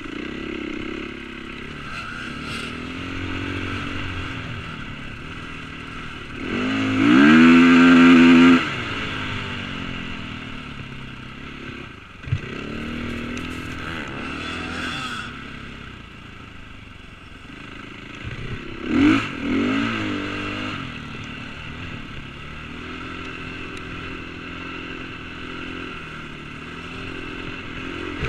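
KTM 450cc four-stroke single-cylinder dirt bike engine running as it is ridden across sand. The throttle is opened hard about a quarter of the way in, and the revs rise and hold high for about two seconds. A shorter burst of revs comes about two-thirds of the way in, and there is a single sharp knock near the middle.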